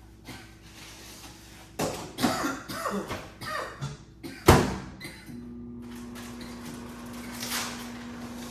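Kitchen clatter of dishes and utensils being handled, ending in one sharp loud clack, then a steady electric appliance hum starts and runs on.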